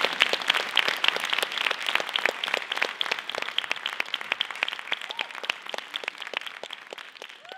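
Audience applauding, the clapping thinning and fading out toward the end.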